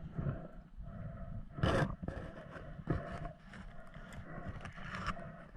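Muffled underwater noise through an action camera's waterproof housing: water rushing and sloshing with scattered knocks and scrapes as the spearfisher handles a pike. A louder rush comes about a second and a half in.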